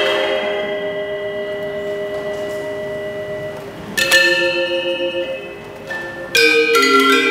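A pair of Balinese gender wayang, bronze-keyed metallophones over bamboo resonators, struck with mallets. A chord rings out for several seconds and fades, a second stroke about four seconds in rings and dies away, and quicker runs of many notes begin near the end.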